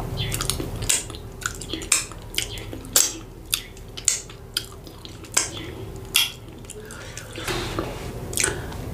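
Wet smacking and sucking clicks of fingers being licked clean of soup, about a dozen sharp smacks spaced under a second apart.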